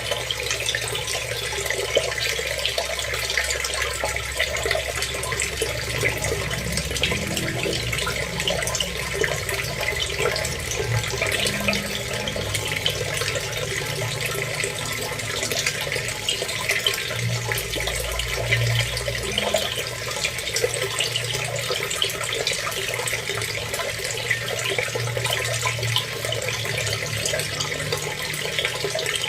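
Steady running water: a continuous splashing hiss with no break.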